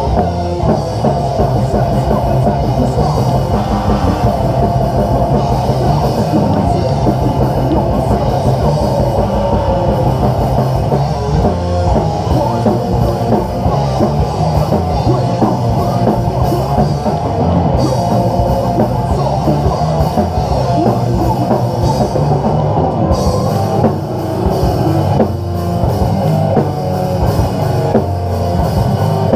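Heavy metal band playing live: distorted electric guitars over a drum kit, loud and continuous.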